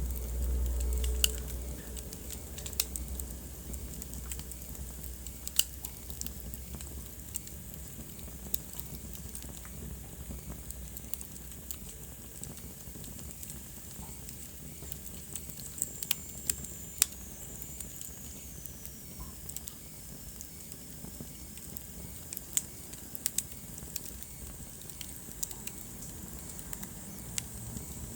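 Wood fire burning in a fireplace: a steady soft hiss with sharp crackles and pops scattered throughout. There is a low rumble in the first couple of seconds, and a faint high whistle falls in pitch a little past the middle.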